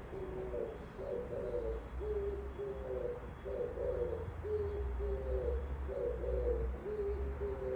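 Oriental turtle dove singing: a low cooing phrase of wavering notes ending in two steady coos, repeated about every two and a half seconds.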